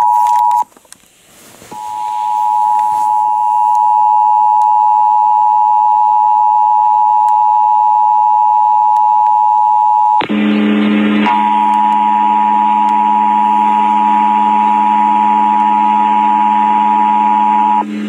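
Emergency Alert System two-tone attention signal (853 and 960 Hz together) played steadily through a portable radio's speaker. It announces the statewide required monthly test. It briefly drops out under a second in. About ten seconds in a burst of static breaks in, and a low buzzing hum carries on under the tone until it stops just before the end.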